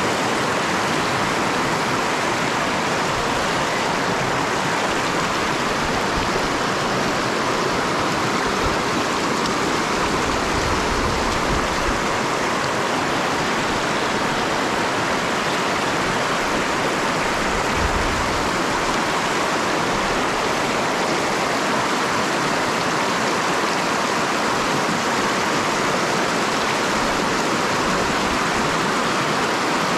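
River water rushing over rocks in shallow rapids close by, a steady, unbroken wash of flowing water.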